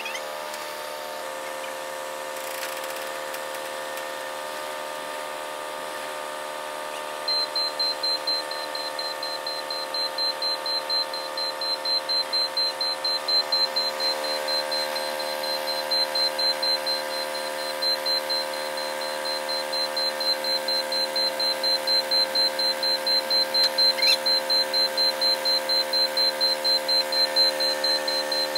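Forklift's high-pitched warning beeper sounding in quick pulses of several beeps a second. It starts about seven seconds in and stops and restarts a few times, over the steady hum of the engine running.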